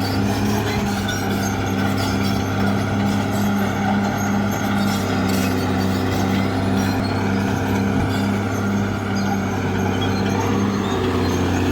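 Caterpillar D6R bulldozer's diesel engine running steadily, a constant low engine drone.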